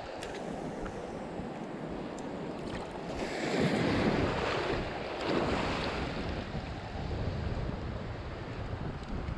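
Wind buffeting the microphone over sea waves washing in shallow water, with a louder surge of water about three seconds in that lasts a few seconds.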